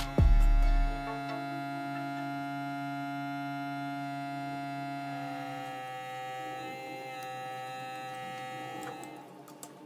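Background music: sustained synth chords over a deep bass hit about a quarter-second in, with the chord changing about six seconds in and the music fading near the end.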